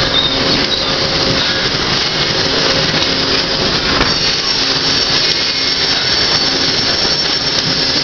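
Steady din of sawmill machinery running: saws, motors and live-roll conveyors together, with a faint hum that comes and goes and a single sharp knock about halfway through.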